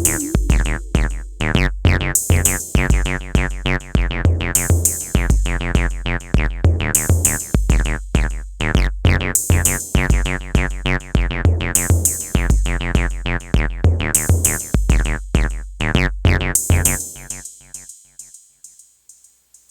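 Electronic jam on a Roland TR-8S drum machine and a Roland MC-707 groovebox: a steady drum-machine beat with kick drums and a bright cymbal-like burst about every two seconds, under short plucked synth notes that drop in pitch. The music stops about three seconds before the end, and its tail fades away.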